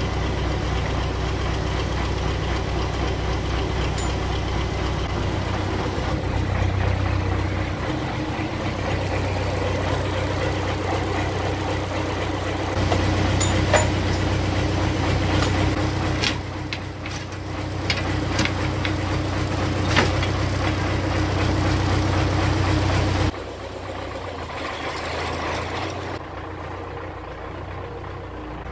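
Belarus MTZ tractor's four-cylinder diesel engine idling steadily, with a few sharp metallic clicks and knocks around the middle. The engine sound drops abruptly in level about three quarters of the way through.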